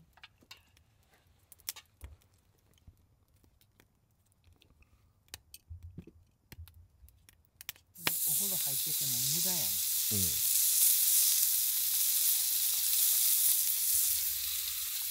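Meat laid on a thick, very hot Kyutetsu iron griddle plate starts sizzling loudly about halfway through and keeps up a steady searing hiss. Before that there are only faint scattered clicks.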